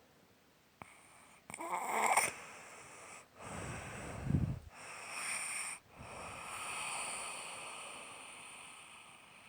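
Snoring in sleep: a noisy breath about a second and a half in, a low fluttering snore around the middle, then another breath and a long out-breath that slowly fades.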